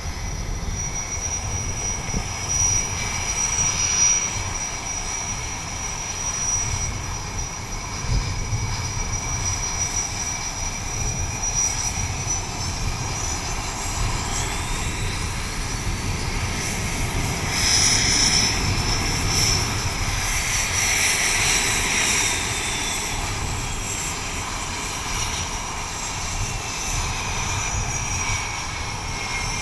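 F/A-18 jet engines running on a carrier flight deck, a steady high whine over a low rumble. About halfway through the pitch rises and the sound swells to its loudest, then the whine slowly falls away over the last third.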